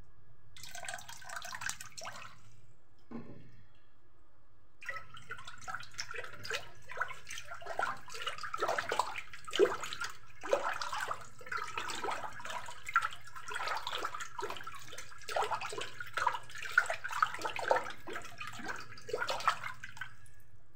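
A spoon stirring water in a bowl, with sloshing and splashing and a few sharper knocks. There is a short splash about a second in, and steady stirring from about five seconds in.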